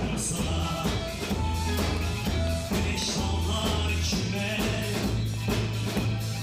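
A rock-style band playing an upbeat number on drum kit, bass, electric guitar and keyboard, with a steady beat and a prominent bass line.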